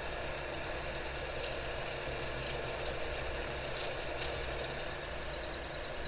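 Taig lathe running while a 1/4-inch twist drill in the tailstock cuts into the spinning metal stock. Near the end a loud, high-pitched squeal starts from the bit in the hole.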